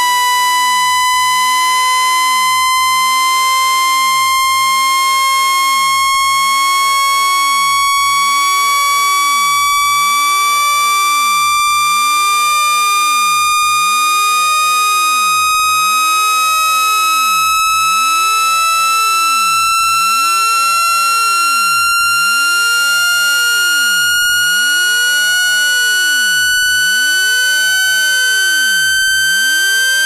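Synthesized water-ejection tone, meant to vibrate water out of a phone's charging port. A single loud, bright electronic tone with a buzzy edge glides slowly and steadily upward in pitch.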